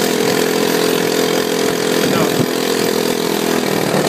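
ATV engine running at a steady, even pitch while the quad rides along.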